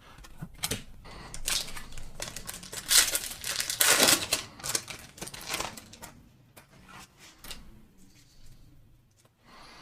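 Pokémon booster pack's foil wrapper being torn open and crinkled, with cards being handled. The crinkling is heaviest in the first half and thins out toward the end.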